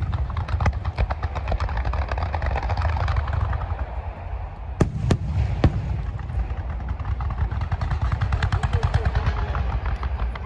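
Fireworks going off: a dense, rapid crackle of many small bursts over a steady low rumble, with a few sharp louder booms about five seconds in.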